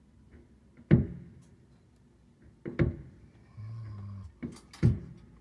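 Aerial firework shells bursting: a loud boom about a second in, another near the three-second mark and a quick pair near the end, each trailing off in a low rumble.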